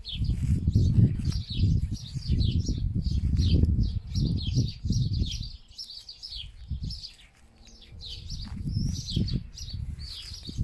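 Small songbirds chirping and singing without pause, over loud, irregular low rumbling bursts of noise that come and go, heaviest in the first half and again near the end.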